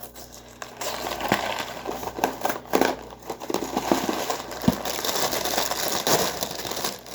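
Cardboard cereal box being opened by hand and its plastic inner bag crinkled: a steady run of rustling with many sharp crackles.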